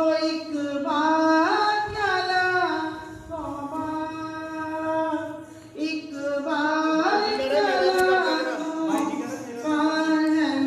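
A woman singing a Hindi devotional bhajan, holding long notes and sliding between them, with a brief pause about six seconds in.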